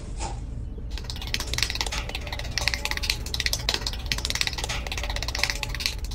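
Sand crunching as a liner is pressed into it, then from about a second in a small metal trowel scraping and smoothing sand, a dense run of gritty scrapes and clicks.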